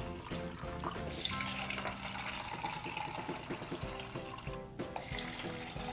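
Water pouring and splashing from a plastic pitcher into plastic cups, over steady background music.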